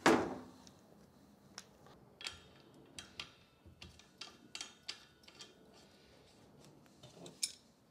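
Primary gas regulator being fitted by hand onto a drinks-dispense gas cylinder's valve. There is a loud clunk at the start, then a run of light clicks and taps as the connection is lined up and threaded on.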